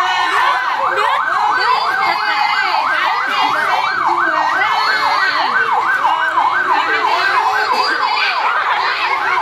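An electronic siren in a fast yelp, its pitch sweeping up and down about three times a second without a break, with fainter higher rising-and-falling tones over it.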